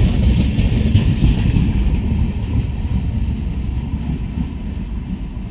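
Passenger train coaches rolling past on the rails, the wheels clattering over rail joints. The rumble slowly fades as the last coach moves away.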